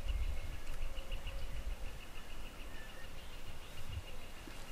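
Woodland ambience: a steady, fast, evenly pulsed high trill runs throughout, with a few faint short whistled notes and a low rumble underneath.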